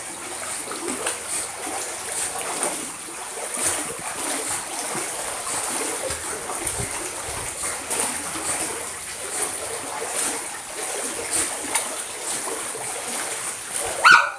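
Water splashing and churning steadily as a Boston terrier paddles around a small pool. A dog barks once at the very end.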